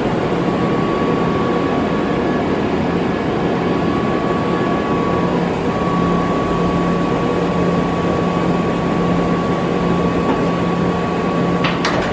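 Hyundai Kia VX-400 CNC vertical machining center running: a steady machine noise with a constant high whine and a lower hum, and a few sharp clicks near the end.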